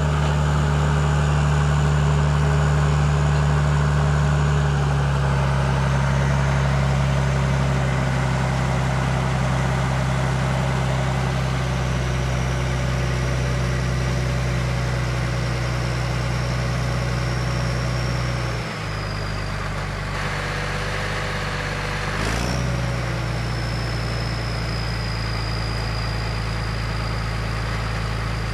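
Motor grader's big turbocharged diesel engine idling steadily, with a high turbo whistle over the engine note that slides down a little in pitch. The idle drops slightly twice, and there is one brief knock a little after the middle.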